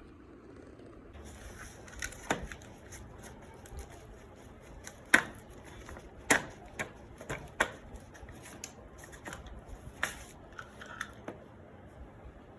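Irregular sharp clicks and taps of small parts being handled, the loudest about five seconds in, as a sanding machine is worked on to change its carbon brushes.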